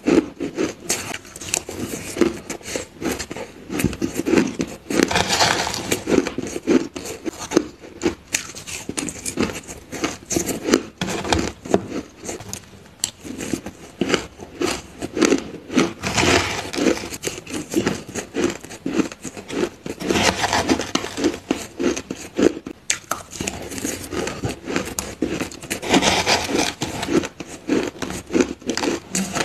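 Crushed ice being chewed close to the microphone: dense, rapid crunching that runs on without pause, swelling louder at a few moments.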